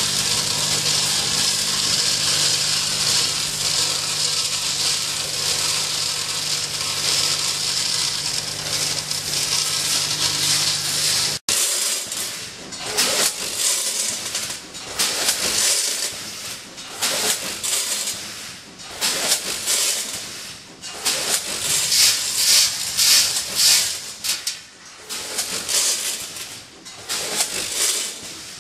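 Steel screws running through an automatic multihead weighing machine. At first a steady vibrating hum with a hiss of screws rattling along a vibratory feed tray. After a cut about eleven seconds in, irregular bursts of metal screws clattering and sliding through the weigher's vibrating pans and hoppers, rising and falling every second or so.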